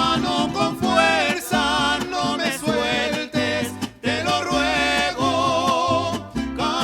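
Mariachi band playing a melodic passage: a melody line with vibrato over strummed guitars and a plucked bass line that moves in steps.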